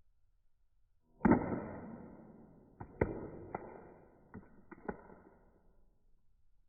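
Flip phone dropped open from waist height, landing with one loud clack about a second in, then bouncing and clattering five or six more times on a hard floor, with a ringing that fades out.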